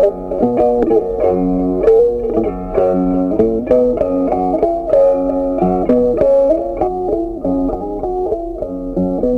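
Background music: a plucked-guitar melody, one note after another.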